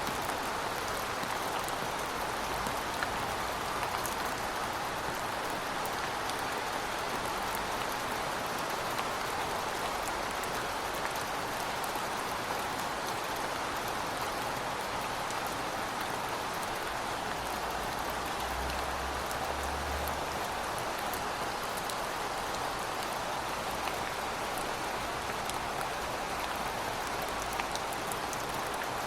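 Heavy rain falling steadily, a dense even hiss of drops with scattered sharper ticks, and a brief low rumble for a second or two past the middle.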